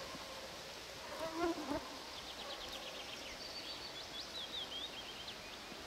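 A fly buzzing briefly near the microphone, then a small bird singing a run of quick, high chirps and trills over faint forest background.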